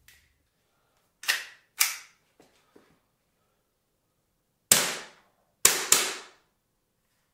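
Umarex Glock 17 Gen 4 CO2 blowback BB pistol being fired, each sharp crack with its slide cycling. Two cracks come just over a second in, a couple of faint clicks follow, then three louder cracks near the end, the last two close together.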